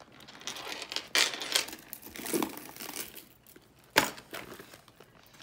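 Rustling handling noise as a black leather Louis Vuitton My LockMe BB handbag with a silver chain strap is picked up and tilted, with a sharp click about a second in and another about four seconds in.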